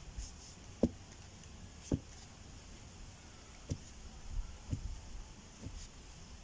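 Dull thuds, five in all at uneven gaps of about a second, the loudest in the first two seconds: work on a bamboo fence post being set in the ground, the post and earth around it being knocked and tamped.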